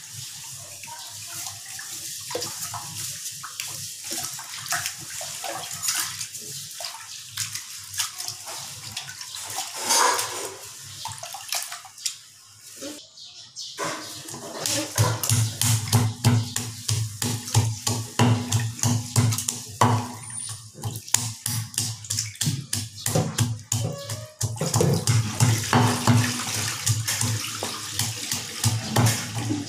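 Wooden pestle pounding garlic cloves and red chillies in a wooden mortar, in steady repeated thuds a few a second, starting about halfway through. Before that come light scattered clicks as chillies are dropped into the mortar, over a steady hiss.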